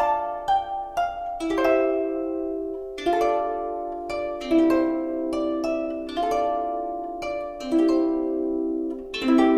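Background music: plucked-string notes with a harp-like sound, each struck note ringing and fading, several overlapping in a slow melody.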